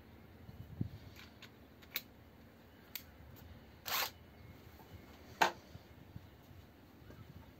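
Small sharp metallic clicks as a wood auger bit is fitted into the quick-release hex chuck of a Makita 14.4 V cordless impact driver, with a short rattle a little past the middle as the bit goes in and one loud click about two seconds before the end.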